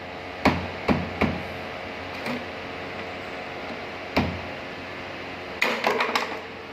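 Sharp plastic-and-metal clicks and knocks of a Volkswagen Polo's exterior door handle being pulled and worked loose by hand. There are three quick knocks at the start, one more about four seconds in, and a rapid cluster of clicks near the end.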